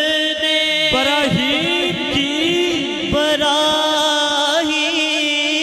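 A man singing a devotional Urdu kalaam without instruments, drawing one phrase out in long, sliding, wavering melismas.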